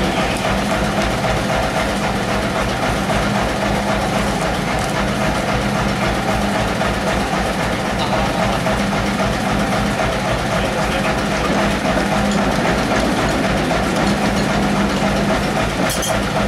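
Sawmill machinery running steadily with a constant hum, with no cutting heard.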